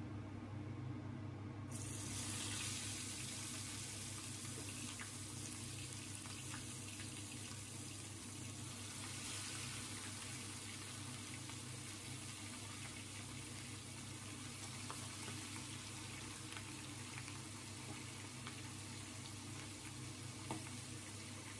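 Spice-coated whole fish frying in hot oil in a pan: the sizzle starts suddenly about two seconds in as the first fish goes into the oil, then carries on steadily with faint crackles as more fish are added. A steady low hum runs underneath.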